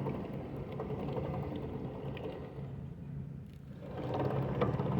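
Faint metallic clicking from the open rear differential's gears and parts being handled, over a steady low hum that dips briefly about three and a half seconds in.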